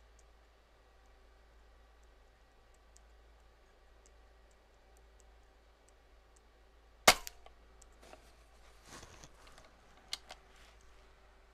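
A single shot from a .22 AirVenturi Avenger Bullpup PCP air rifle fitted with a Donny FL Sumo moderator: one sharp crack about seven seconds in. A few seconds later come clicks and handling noise as the rear side lever is worked to load the next pellet.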